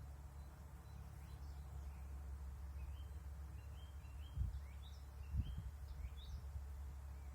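Small birds chirping in short, high, repeated notes over a steady low rumble, with two brief low thumps about halfway through.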